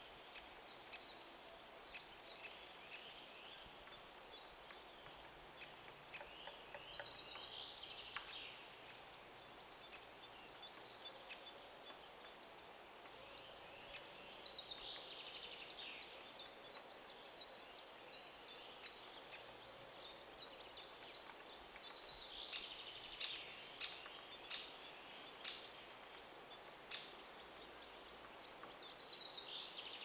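Black woodpecker chiselling a nest cavity into a pine trunk: quiet, sharp, irregular pecking strikes on the wood, coming thicker and louder through the second half. Small birds sing faintly in the background.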